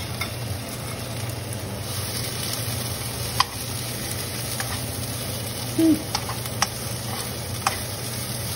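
Dried red chilies, green onions and garlic sizzling in hot oil in a nonstick pan while a slotted metal spoon stirs them, clicking against the pan now and then. One brief louder clunk comes a little before six seconds in.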